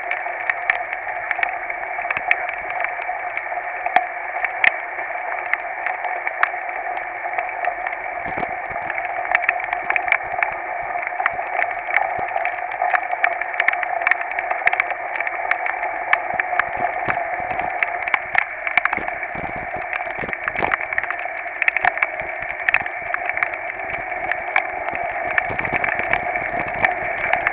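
Muffled, steady hiss of a mountain bike rolling along a wet dirt trail in rain, heard through a handlebar-mounted camera's housing, with many sharp ticks and some heavier knocks from bumps on the trail.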